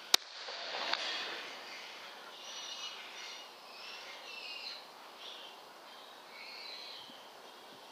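A single sharp crack just after the start, then faint, wavering, high-pitched chirping calls over a steady hiss.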